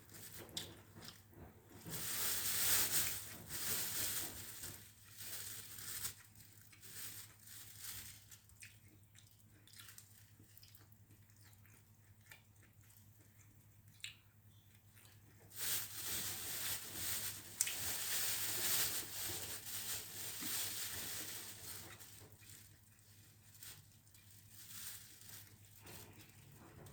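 Close-up eating sounds of a mukbang: pancit noodles being chewed, with scattered clicks and two long louder noisy stretches, one a couple of seconds in and one past the middle.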